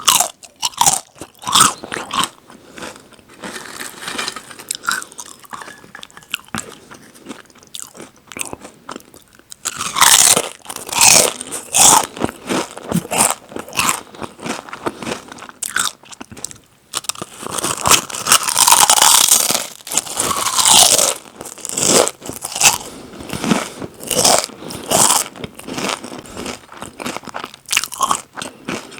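Crisp snack chips being bitten and chewed: a run of sharp, dense crunches, loudest in stretches about ten seconds in and again from about seventeen to twenty-three seconds.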